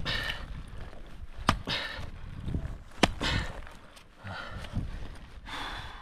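Ice-climbing gear striking ice, sharp strikes about every second and a half, each followed by a short hiss.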